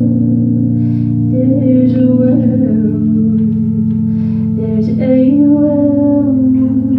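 A live song: a singer's voice over held instrumental chords, with a plucked-string accompaniment.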